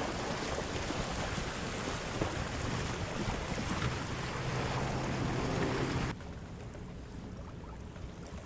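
Wind buffeting the microphone and water rushing along the hull of a Niagara 26 sailboat under sail. About six seconds in, the noise drops abruptly to a quieter wash.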